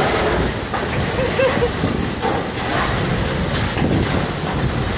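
Typhoon wind and rain making a steady, loud rushing noise.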